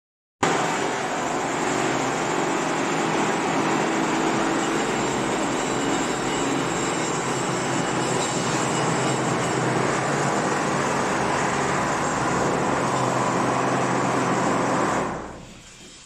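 Automatic wall-plastering machine running steadily as its carriage climbs the mast and spreads cement render onto a brick wall. The steady mechanical noise cuts out about a second before the end.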